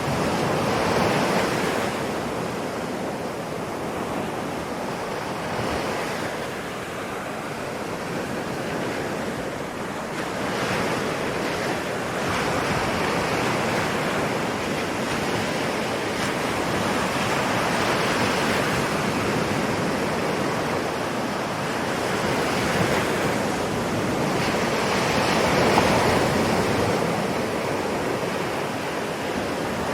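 Ocean waves breaking and washing on a shore, the surf swelling and easing every few seconds, with some wind.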